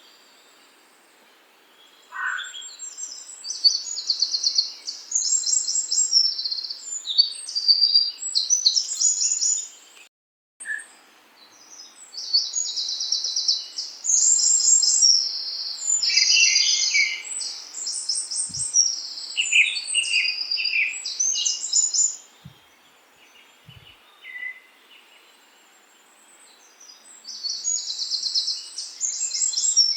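Songbirds singing in high, rapid chirping trills, phrase after phrase with short pauses, and a quieter stretch a little after the middle before the singing picks up again.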